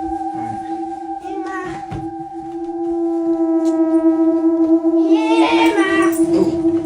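Music of long held notes, with a voice joining briefly about five seconds in.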